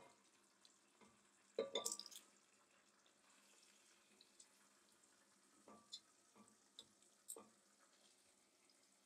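Faint clicks and soft wet taps of metal tongs against a stainless frying pan as pieces of sauced beef shank are lifted out and moved to a pressure cooker. A short cluster of taps about two seconds in is the loudest, followed by a few scattered single ticks.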